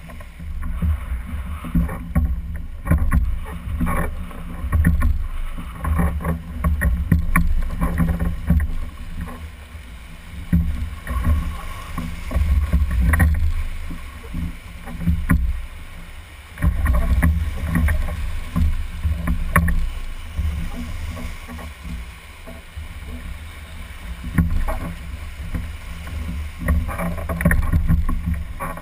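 Whitewater rushing and splashing around an oar-rowed whitewater raft running a shallow rapid, with a heavy low rumble on the microphone that swells and fades, and frequent short sharp splashes and knocks.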